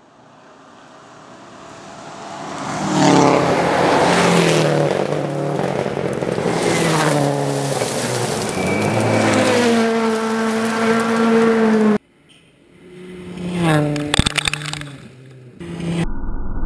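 Rally cars at speed on a gravel stage. A Subaru Impreza rally car approaches and passes, its engine note stepping up and down with gear changes, then holding steady as it goes away; after a sudden cut another car passes quickly with a few sharp cracks, and near the end a deep, muffled engine rumble.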